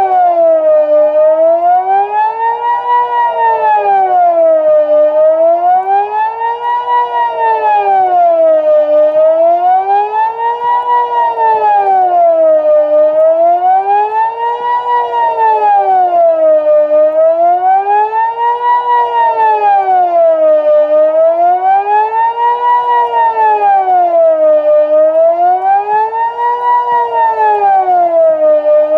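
Swiss civil-defence siren sounding the General Alarm (Allgemeiner Alarm) in the annual siren test: one continuous wailing tone that rises and falls smoothly, about once every four seconds.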